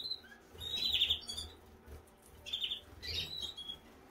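Canaries chirping in short bursts of quick, high notes: about a second in, then twice more near the three-second mark.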